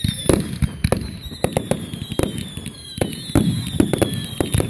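Aerial fireworks going off in a rapid, irregular barrage of bangs and cracks, several a second, with high whistles falling slowly in pitch.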